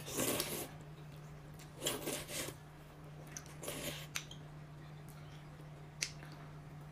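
Tableware handling at a meal: three short rustling, scraping bursts and two sharp clicks, one about four seconds in and one near the end, over a steady low hum.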